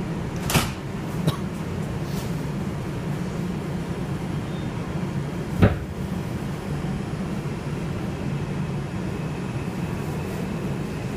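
Steady rumble of an R142 subway train heard from inside the car, with a few sharp knocks: two near the start and the loudest about halfway through.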